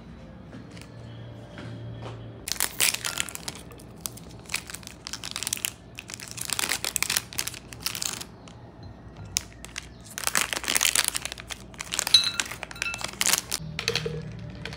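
Packaging crinkling and rustling in half a dozen irregular bursts, each lasting about one to two seconds.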